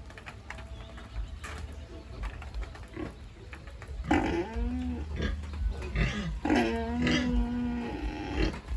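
Pigs calling: faint scattered sounds, then two loud drawn-out calls about four and six and a half seconds in, over a steady low hum.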